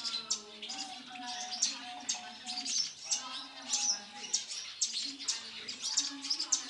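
Caged parakeets chirping and chattering: a dense run of short, sharp high chirps that goes on without a break.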